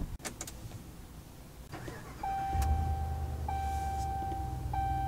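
Pickup truck cabin: the engine starts about two seconds in and runs on at a low, steady idle. Over it a dashboard warning chime sounds three long, even tones in a row.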